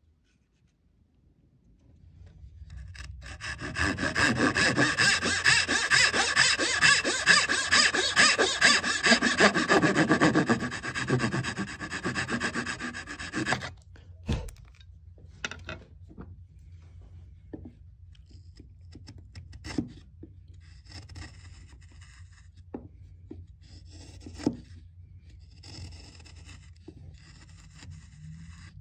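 Hand tool scraping on wood: loud, continuous scraping for about ten seconds that stops suddenly. After that come softer, shorter scraping strokes and a few light knocks as a chisel pares a muntin joint.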